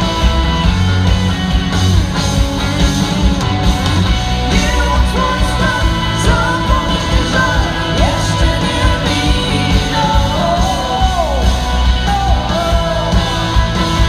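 Live rock band playing loud in a concert hall: electric guitars, bass and drums with a steady beat and a sung lead line, recorded on a phone from the crowd.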